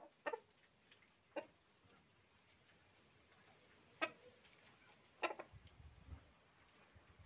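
Chickens clucking: four short, spaced-out clucks, with a low rumble about five and a half seconds in.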